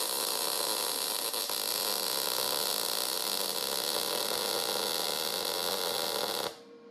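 Electric welding arc burning steadily down inside a drilled hole in quarter-inch steel plate, laying a plug weld: an even hiss that stops about six and a half seconds in, leaving a faint hum.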